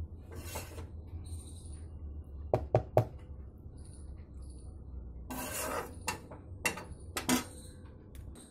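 Spoon scraping and tapping against a plastic bowl of cooked macaroni, with a few sharp knocks: three quick ones about two and a half seconds in, and two more near the end.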